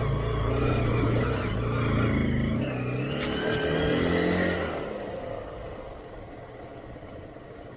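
Motorcycle engine revving, loud for about the first four and a half seconds, then dropping back to quieter running.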